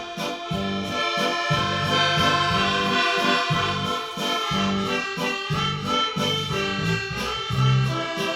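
Background instrumental music led by an accordion over a steady, pulsing bass line.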